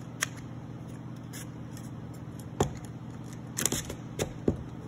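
Thin laser-cut plywood pieces clicking and tapping as they are slotted together and handled, a handful of sharp knocks with a small cluster late on, over a steady low background hum.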